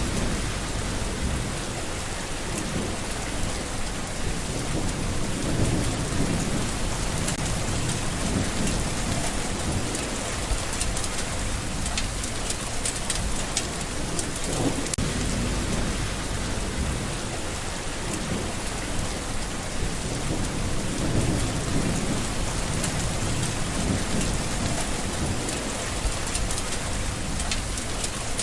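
Steady rain falling, with low rolling rumbles of thunder that swell and fade every few seconds and sharper drop ticks coming through in the middle.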